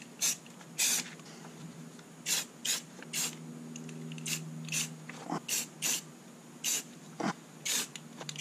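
Aerosol spray paint can hissing in more than a dozen short, quick bursts, paint dabbed on in camo patches.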